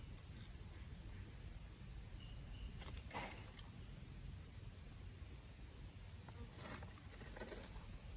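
Faint, steady high insect trill, with a few light clicks of hand work, about three seconds in and twice near the end.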